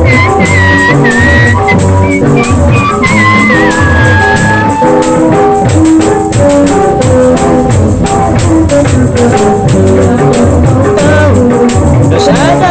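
Street buskers playing a dangdut song: a tambourine jingles over a steady beat, with a high held melody line in the first few seconds.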